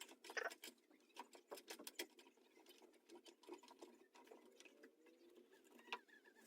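Faint, scattered small clicks and taps, most of them in the first two seconds and one sharper click near the end.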